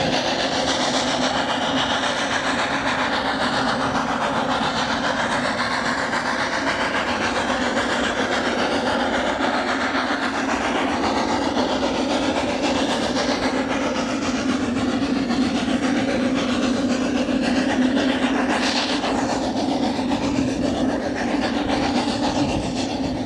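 Snowdon Mountain Railway steam rack locomotive, No. 2 'Enid', working steadily as it pushes its single carriage along the rack line, with a continuous run of exhaust and running-gear noise that grows a little louder as it comes closer.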